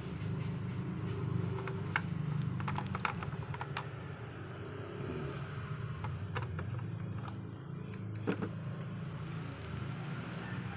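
Scattered light clicks and taps over a steady low hum, the clicks coming in two loose clusters with the sharpest about two, three and eight seconds in.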